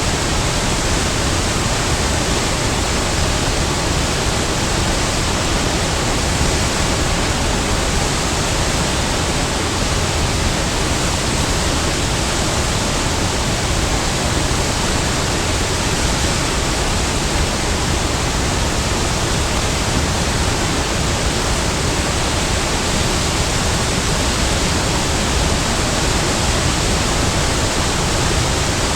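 Large waterfall: a steady, even rush of falling water with no change throughout.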